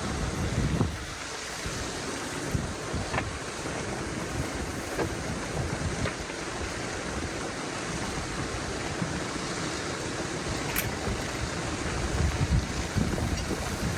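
Strong gusty wind rushing steadily and buffeting the microphone in uneven low surges. A few faint sharp clicks stand out, one about three seconds in and one near eleven seconds.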